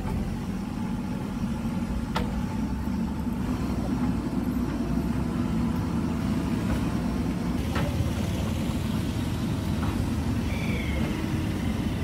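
JCB backhoe loader's engine running steadily under load as the backhoe arm digs, with two sharp knocks, about two seconds in and again near eight seconds.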